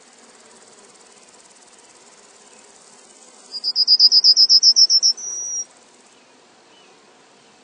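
Crickets chirring in a steady high buzz. Partway through, a loud rapid trill of about a dozen high notes rings out over them and ends in a short held note.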